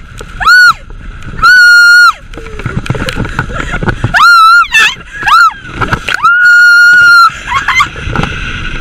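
Riders on a towed inflatable tube screaming in about five long, very loud, high-pitched shrieks. Rushing water and wind noise fill the gaps between them.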